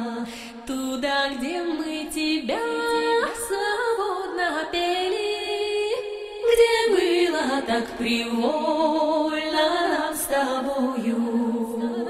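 Music with a slow melody that glides between notes over a sustained low drone.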